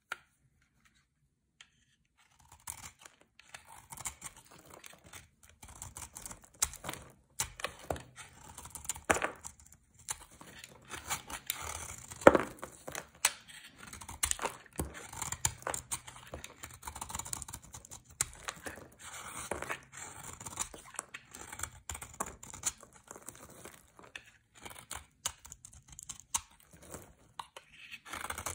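A thin metal blade scraping and shaving a bar of hard white soap, a dense run of short crisp crackling scrapes as flakes peel off. The scraping starts a couple of seconds in, after a near-silent opening.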